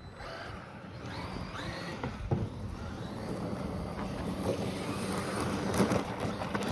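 Traxxas Maxx RC monster truck running on a 3S lipo, its brushless electric motor whining up and down in pitch with the throttle over drivetrain and tyre noise. The sound gets louder toward the end.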